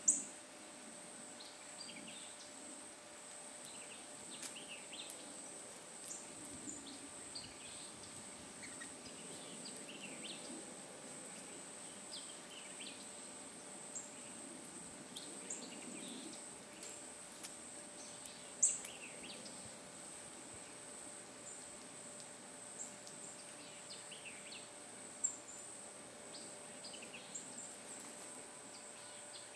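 Steady high-pitched insect drone, with scattered short bird chirps and a few sharp clicks.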